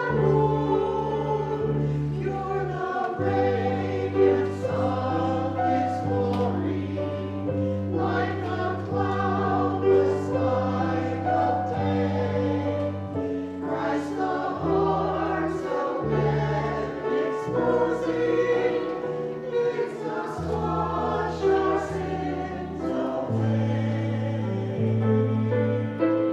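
A choir singing with instrumental accompaniment, over sustained bass notes that change every second or two.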